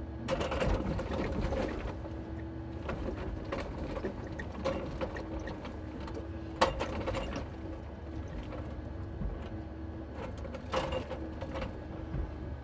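Timber truck's loader crane at work on a load of birch: a steady hum under irregular knocks and clatter of logs being handled and evened against the load, with one sharp knock about six and a half seconds in.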